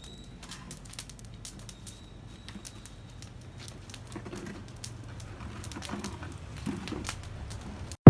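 Faint scattered clicks and pops of a fire being lit, crackling unevenly, with a few soft low bird calls in the second half.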